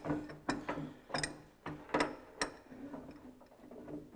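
Gearbox main shaft of a Ferguson TE20 tractor being turned back and forth by a shifting spanner on the rear PTO shaft, giving irregular metallic clicks and clunks about twice a second, fewer toward the end. The shaft is being worked to line up its splines with the clutch plate while the tractor is pushed back together.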